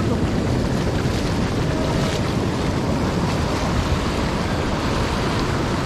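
Sea surf washing up the shallows in a steady rush, with wind buffeting the microphone.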